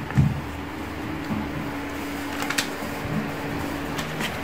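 A steady electrical or mechanical hum with one held tone that stops near the end, with a few faint clicks of handling.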